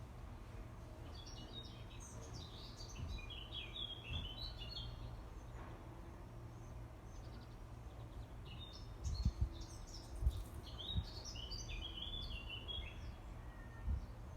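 A songbird singing two long phrases of quick, stepped high notes, a few seconds apart, over a steady low rumble. Several short low thumps come in the middle and once near the end, louder than the song.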